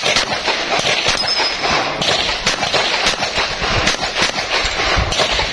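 A string of pistol shots fired in a practical-shooting stage, irregularly spaced, roughly one every half second to a second, over steady background noise.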